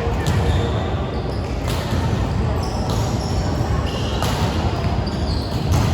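Indoor volleyball match: ball hits and short high squeaks of shoes on the court floor, several times, over a steady hubbub of voices echoing in a gym.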